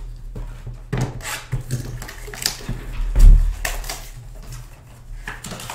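Trading-card boxes being handled and set down on a table: scattered taps and clicks, with one heavy, low thump a little after three seconds in.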